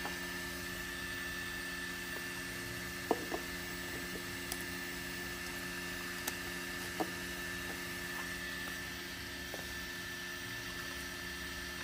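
Steady fan hum with several constant tones, and a handful of light clicks as a 3D-printed plastic part is handled.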